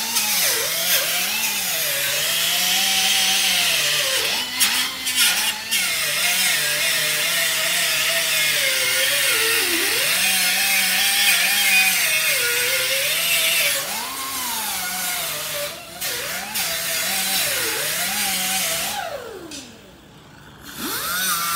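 Handheld air-powered die grinder running against a rusty steel bicycle fender, grinding rust off the metal. It gives a hissing whine whose pitch wavers up and down as the tool is pressed and eased. The grinder stops for about a second near the end, then starts again.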